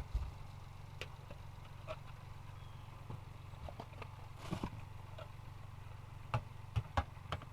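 Scattered light clicks and knocks of the humidifier's hard plastic parts being handled, with a cluster of taps about halfway through and three sharper knocks near the end, over a steady low hum.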